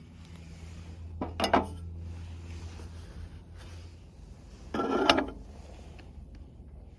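Two brief clatters of hard objects knocking together, one a little over a second in and one about five seconds in, over a steady low hum.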